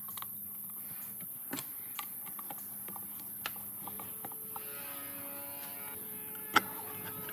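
Steady electric hum like a small motor running, with scattered light clicks. A set of steady higher tones joins about four seconds in, and a single sharp click comes a little before the end.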